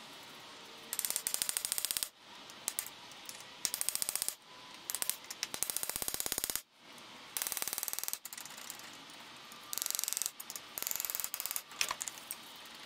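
Hand ratchet clicking in about six short runs of rapid clicks, working loose the fitting that holds the air-con pipe to the condenser.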